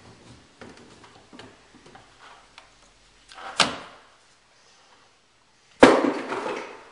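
Plastic PEX tubing and a PEX pipe cutter being handled, with light clicks, then a sharp snap about three and a half seconds in, like the cutter closing through the tube. Near the end comes a louder sudden knock that dies away over about a second.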